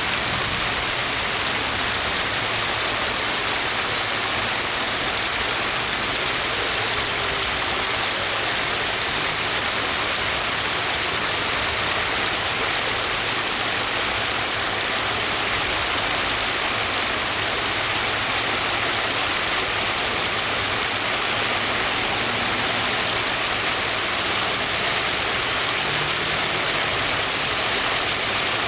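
Shallow creek water running over rocks: a steady, even rushing hiss.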